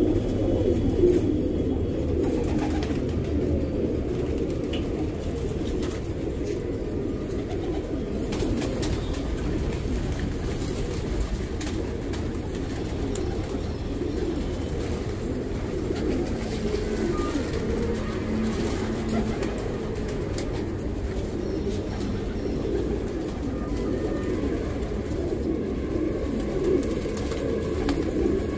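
Black menadaag domestic pigeons cooing, many birds overlapping in a steady low cooing chorus.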